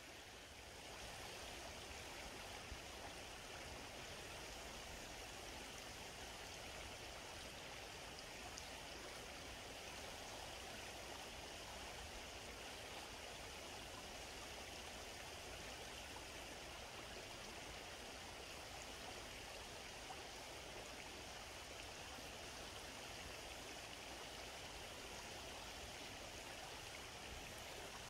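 Faint, steady rush of flowing stream water, even and unbroken.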